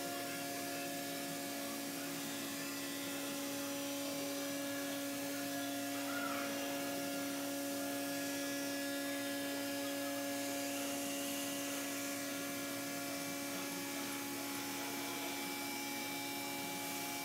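3-axis CNC router spindle running at a steady pitch while machining a thermoformed plastic louver part: a constant hum with a hiss above it.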